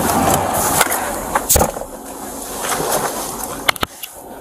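Body-camera rubbing and handling noise as the wearer climbs into a patrol car's driver's seat, with a low thump about a second and a half in. Near the end a couple of sharp clicks as the car door shuts, after which the outside noise drops away.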